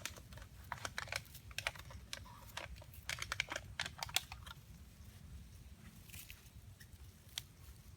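Rapid, irregular clicks and crackles, dense for the first four seconds or so and then sparse, over a low steady rumble.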